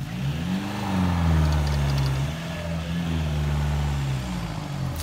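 Toyota Hilux pickup's engine revving up and held high as the truck tries to drive out of soft sand with its wheels digging in, then easing off a little after four seconds.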